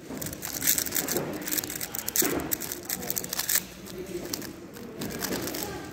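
A plastic 3x3 speedcube being turned fast in a solve: a rapid, irregular run of clicking and clacking from its layers, starting within the first second.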